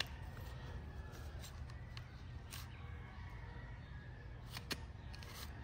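A few faint, scattered clicks from a 1950s Sears and Roebuck gear-drive chainsaw's recoil starter as its rope is pulled out by hand, over a low steady hum.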